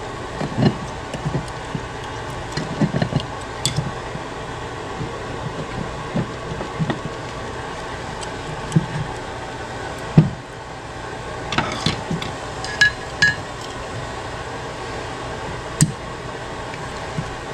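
Scattered clicks, taps and knocks of pliers and the aluminium transmission oil pump body being pried at and handled on a workbench, the sharpest knock about ten seconds in, over a steady background hum.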